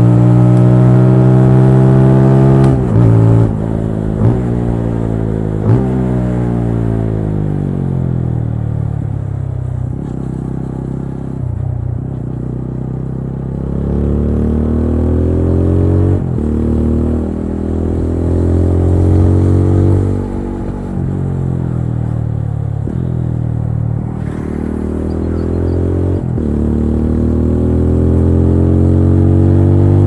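TVS Apache RTR 200 4V's single-cylinder engine under way: it revs high, falls in pitch through several quick dips as the bike slows, then climbs again, with a short dip at each gear change.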